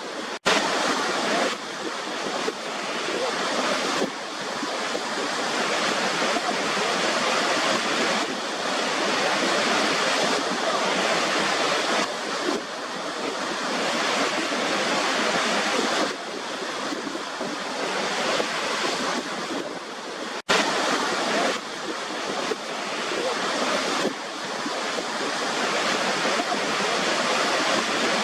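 Waterfall: a steady rush of falling water. It cuts out for an instant about half a second in and again about twenty seconds in, where the recording is spliced.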